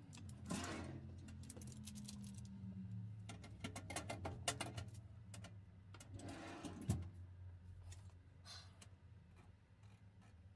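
Faint clicks, knocks and rustles of things being handled, with a sharper knock about halfway and another near seven seconds, over a low steady hum.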